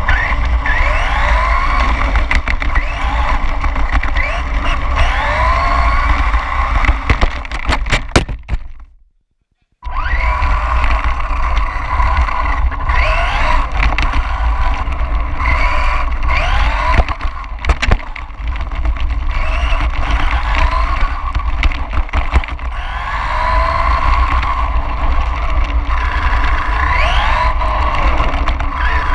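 RC car's motor whining up and down in pitch again and again with the throttle, over a steady rumble of tyres and chassis vibration on asphalt picked up by the onboard camera. A string of sharp clicks comes about seven to eight seconds in, then the sound cuts out completely for about a second.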